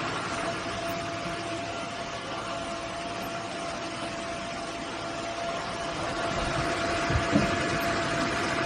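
Roborock F25 GT cordless wet-dry vacuum mop running steadily, a constant rushing hum with a fixed whine, and a brief low thump a little after seven seconds.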